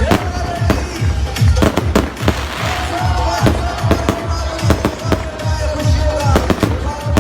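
Fireworks exploding in quick succession: a dense run of sharp bangs and crackles with deep thumps several times a second. Music plays along with a long held note.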